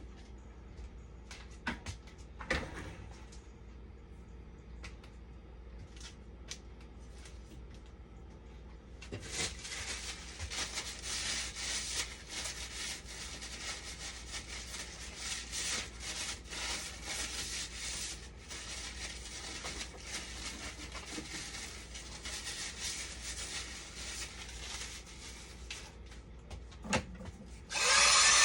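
A few small clicks and knocks, then from about nine seconds in a long run of scratchy rubbing and scraping, like hand work on a part. Near the end a much louder steady rushing noise starts abruptly.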